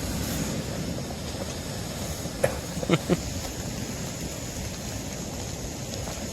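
Steady wash of wind and surf on a beach in the rain, with a few short sharp sounds about two and a half to three seconds in.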